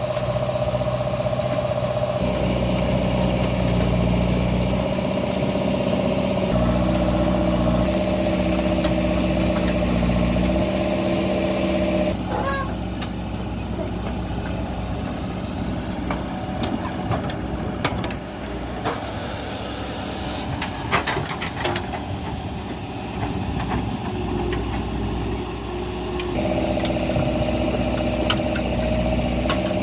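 Diesel engine of a JCB 3DX backhoe loader running under working load, its pitch stepping up and down. About halfway through it drops back and a series of knocks and clanks is heard, then the engine comes back up near the end.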